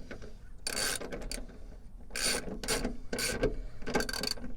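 Hand ratchet wrench tightening a bolt: a series of short rasping ratchet strokes, one every half second to second.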